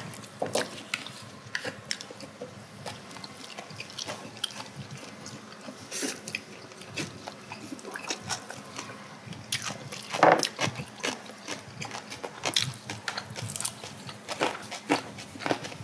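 People eating: chewing and biting mouthfuls of braised pigs' feet (jokbal) and buckwheat noodles, with irregular light clicks of chopsticks against bowls and plates. There are louder moments about six and ten seconds in.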